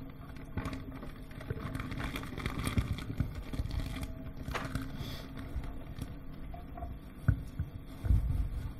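Plastic wrapping crinkling and rustling in a chef's hands as a lobe of raw foie gras is unwrapped, with scattered light handling clicks, a sharp knock about seven seconds in and a dull thump near the end.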